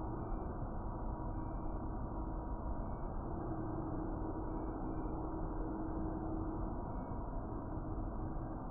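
Hair dryer running steadily: an even rush of blowing air with a constant motor hum.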